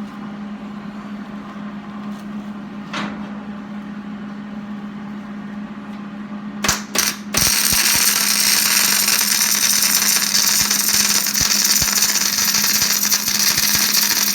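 Electric arc welding on a steel linear rail. After a steady low hum, the arc sputters twice briefly about seven seconds in, then holds as a loud continuous weld.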